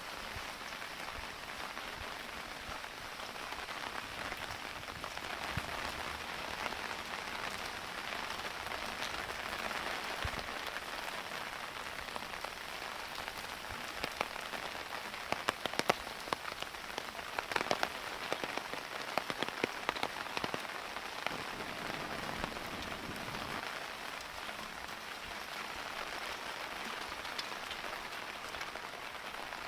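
Rain falling steadily, an even hiss of drops on surfaces, with a run of louder sharp drip-like taps around the middle.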